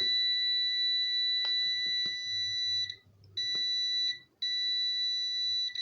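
Digital multimeter's continuity buzzer sounding a steady high beep, showing a closed circuit through the shorted cable. The tone cuts out briefly twice, about halfway through and again a second later, then carries on, with a few faint clicks of the probes and cable being handled.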